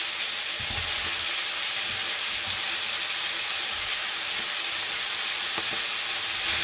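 Chicken and onions in fajita seasoning sizzling steadily in a hot cast-iron skillet, a continuous high hiss. A few low knocks come as sliced mushrooms are added to the pan.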